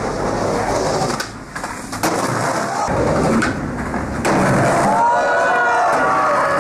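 Skateboard wheels rolling over stone with several sharp clacks of the board, and a few drawn-out calls near the end.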